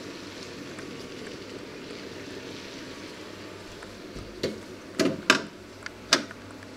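A steady hiss, then four sharp clinks and knocks about four to six seconds in as a plate is set onto a refrigerator's glass shelf, the second and third close together and the loudest.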